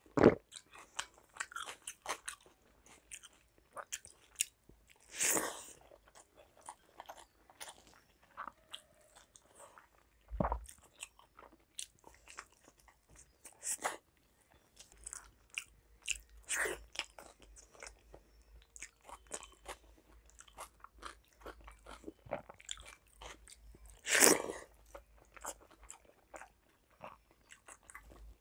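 A person eating panta bhat and fried side dishes by hand, close to the microphone: steady chewing and crunching with many small mouth clicks and a few louder crunches.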